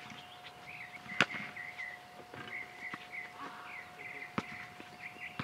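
Basketball bouncing on an outdoor court: several separate sharp thuds at uneven intervals, the loudest about a second in. Short high squeaks or chirps and a faint steady tone run underneath.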